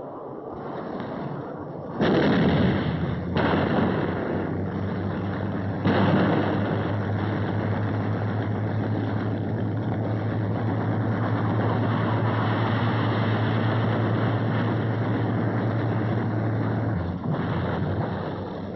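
Three sudden loud blasts, about two, three and a half and six seconds in, over the steady low drone of landing craft engines. The drone drops off about a second before the end, and the whole soundtrack is dull and narrow, as on old film.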